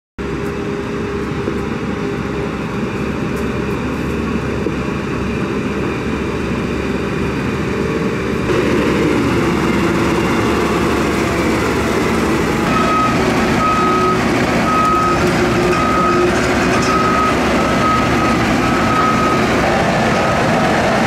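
Diesel engines of Ecolog forest harvesters running as the machines drive, getting louder about a third of the way in. A reversing alarm beeps about once a second through the second half.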